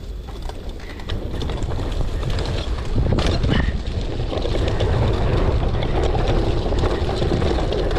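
Wind buffeting the microphone over the rolling rumble of a mountain bike riding down a dirt trail, growing louder about a second in as the bike picks up speed.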